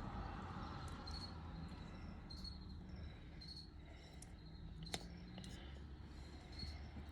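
Faint chirping from an insect, short high chirps repeating at an even pace over a low steady hum, with one sharp click about five seconds in.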